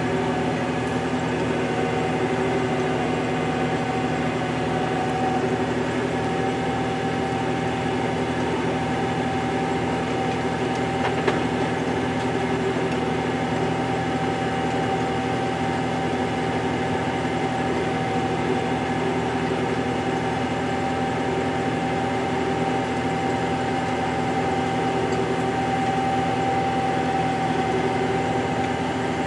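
Fendt 712 tractor running steadily under load while pulling a rotary power harrow and seed drill for maize planting. A steady mid-pitched tone sits over the even engine drone, and there is one sharp click about eleven seconds in.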